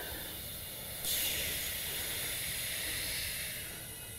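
Compressed air hissing from a shop air hose's chuck into a riding-mower tire, inflating it to seat the tire's beads on the rim. The hiss jumps louder about a second in and eases off near the end.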